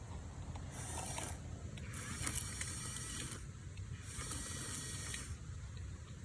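RC excavator's small electric motors and gearboxes whirring in three spells of a second or so as the model moves over rocks, over a steady low rumble.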